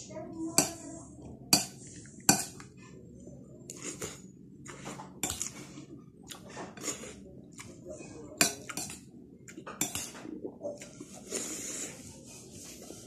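Metal spoon and fork clinking against a ceramic bowl while eating rice: sharp, irregular clinks every second or so, with a few louder ones, and a brief hiss near the end.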